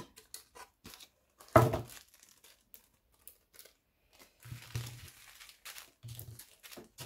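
Small plastic zip-lock bags of diamond-painting drills crinkling and rustling as they are handled. Light scattered clicks run throughout, a brief thump comes about one and a half seconds in, and the rustling grows busier near the end.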